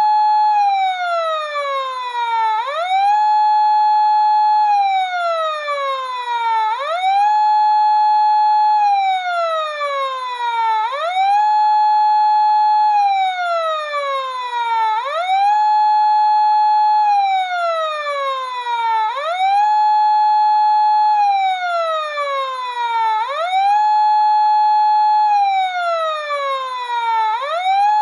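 Emergency siren sounding for a fire, in a repeating wail. Each cycle is a quick rise to a high tone, held for a second or two, then a slow fall to a lower pitch, about once every four seconds.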